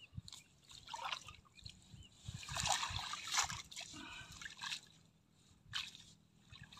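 Water splashing and trickling off a wet cast net as it is hauled up out of shallow water by its rope, in irregular bursts that are loudest about midway.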